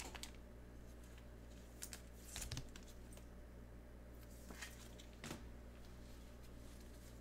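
Faint handling sounds of trading cards and packaging under gloved hands: a few short rustles and clicks, the biggest cluster about two and a half seconds in.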